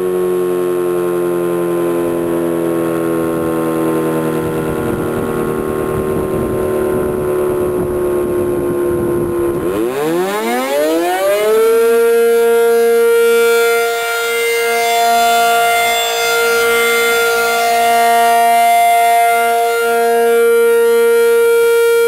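Federal Signal 500-DH-TT outdoor warning siren coasting down with its pitch slowly falling. About ten seconds in it spins up again in a fast rising wail, then holds a steady high tone that swells and fades as the rotating horns sweep around. This is the turnover from one test activation to the next.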